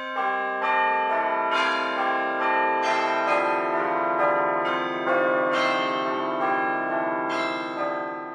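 A melody of struck bell-like chimes, a new note about every half second to a second, each left to ring on under the next. It starts and stops abruptly as an outro music clip.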